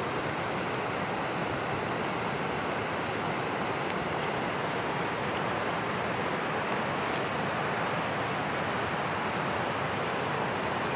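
Steady rushing of a fast mountain creek running white over rocks, an even wash of water noise, with a faint tick about seven seconds in.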